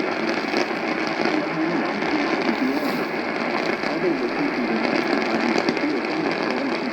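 AM radio reception with loud, steady static hiss and faint crackle, and a voice coming through weakly under the noise.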